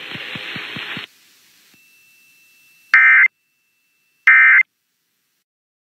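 The synthesized voice of an emergency weather broadcast finishes speaking about a second in. Then come two short, shrill bursts of digital data tones about a second apart: the Emergency Alert System's SAME end-of-message code that closes the warning.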